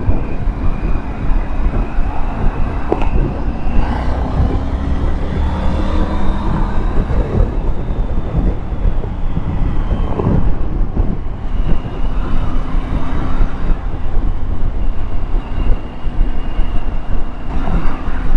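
Triumph Tiger 900 GT Pro motorcycle's three-cylinder engine running under way, its pitch drifting slowly up and down with road speed. A heavy rumble of wind buffets the rider's helmet microphone.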